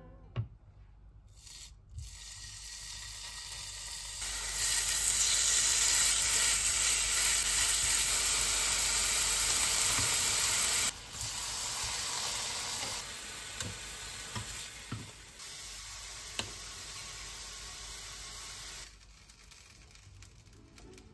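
Minced turkey and grated vegetable patties frying in oil in a ceramic-coated frying pan, a steady sizzle. It is faint at first, loudest from about four seconds in to the middle, then drops in steps and is faint near the end.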